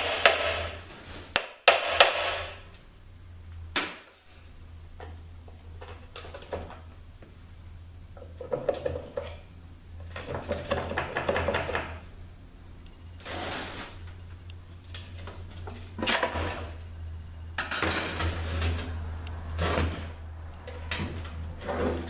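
Metal transmission parts being worked and handled as a THM-125C transmission cover is freed from the case: a few sharp metallic knocks about two seconds in, then scattered taps and bursts of clanking and rattling. A steady low hum runs underneath.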